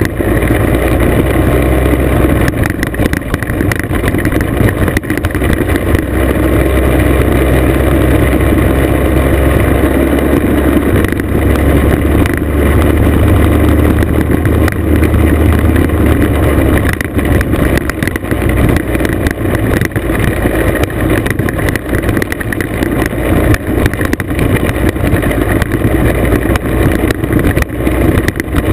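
Classic scooter's small two-stroke engine running at a steady cruise while riding on a gravel road, with a loud, constant rumble and crackle from the road and the ride.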